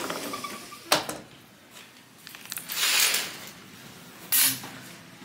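Sliding glass balcony door being handled and slid open: a sharp click about a second in, a rush of noise a couple of seconds later, and a short loud scrape near the end.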